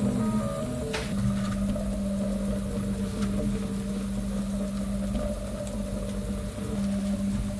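Prusa i3 MK3 3D printer running a print: its motors hum, with a steady fan-like hiss behind them. The motor tones shift for about the first second, then settle into one steady low hum.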